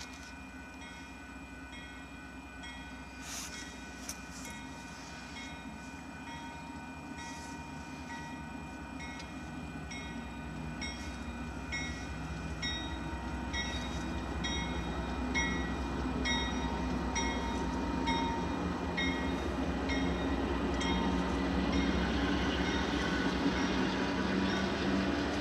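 Railroad grade-crossing warning bell ringing at a steady beat, about three strikes every two seconds. Under it the low rumble of an approaching Union Pacific freight train's diesel locomotives grows steadily louder through the second half.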